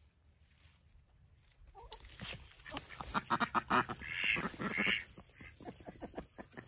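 Ducks quacking in a rapid string of short calls, starting about two seconds in.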